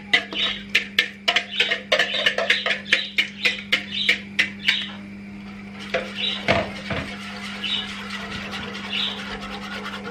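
A whisk stirring yogurt soup fast in a coated pot, clinking against the pot's sides about four times a second, until the clinking stops about five seconds in. Quieter stirring follows, with a short squawk-like sound about six and a half seconds in.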